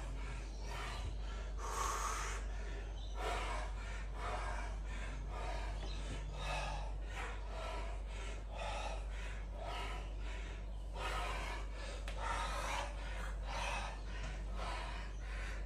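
A man's sharp, hissing exhalations repeated a few times a second, the forced breath out that goes with each punch while shadowboxing.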